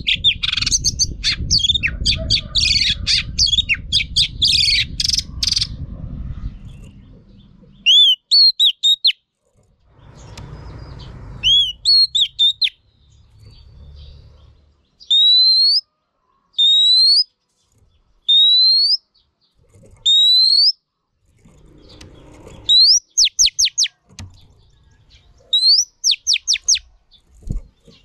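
Female Oriental magpie-robin singing: a fast, varied run of chattering notes for the first several seconds, then single rising whistles about every second and a half, and a couple of quick runs of rising notes near the end.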